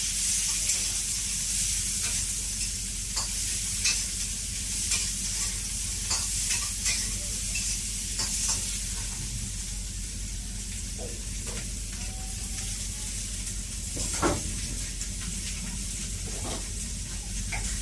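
Garlic scapes and pork stomach sizzling in a hot wok while being stir-fried, a metal spatula scraping and tossing against the pan in irregular strokes, more often in the first half, with one louder knock about 14 seconds in.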